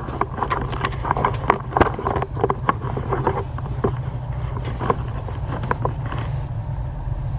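Camera being set down and handled: scattered clicks and knocks over a steady low rumble on the microphone.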